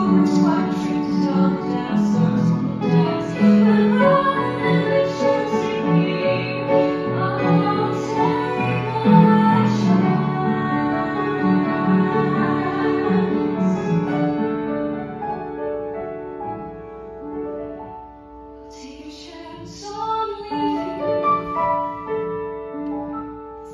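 A young female singer sings a musical-theatre ballad with grand piano accompaniment. About two-thirds of the way through, the music grows quieter, then the voice comes back near the end.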